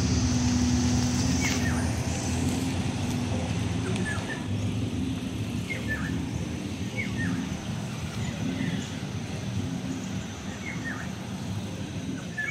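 Cars driving slowly past, a low engine and tyre rumble that gradually fades, while a bird gives short falling chirps every second or two.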